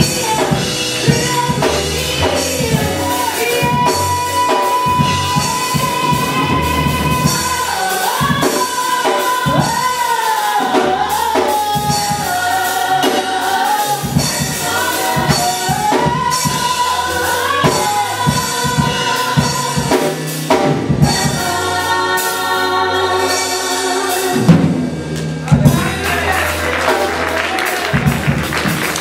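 Gospel worship music: singing voices with a wavering lead melody over a drum kit, and a tambourine shaking near the end.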